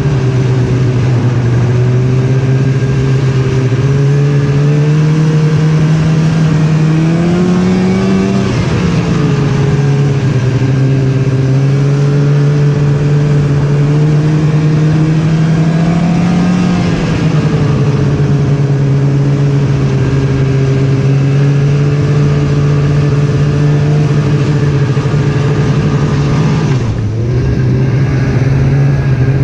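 Snowmobile engine running under way. Its pitch climbs gradually twice as it speeds up, drops back each time, and dips briefly near the end.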